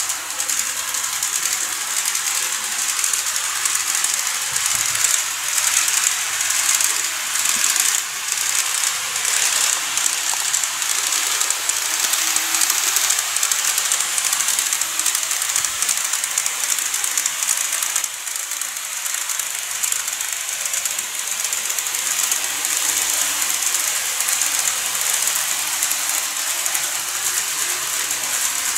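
KATO N-scale E231-series model trains running on layout track: a steady, high-pitched rattling whirr of the small wheels and motors, with fine rapid clicking over the rails.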